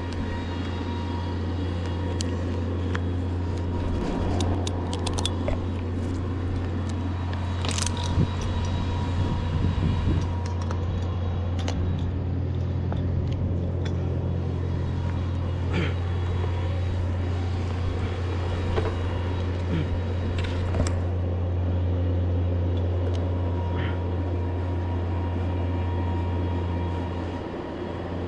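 A steady low rumble, with scattered light clicks and knocks.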